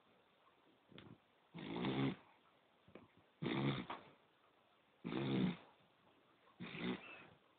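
A sleeping poodle snoring in a steady rhythm: four rasping snores about a second and a half apart, with a short faint one about a second in.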